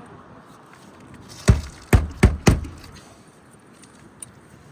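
Four hammer strikes in quick succession, driving roofing nails through an asphalt shingle, about a second and a half in.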